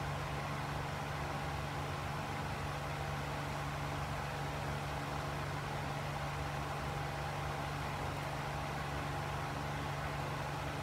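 A steady background hum of running equipment, with a fainter hiss and no separate events.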